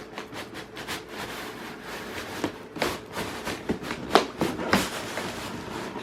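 Cardboard box and packaging being handled as a box fan is lifted out: irregular rustles, scrapes and knocks, the sharpest a little after four seconds.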